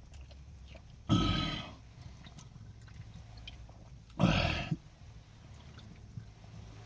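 A person speed-chugging a can of energy drink: two loud gulps, each about half a second long and about three seconds apart.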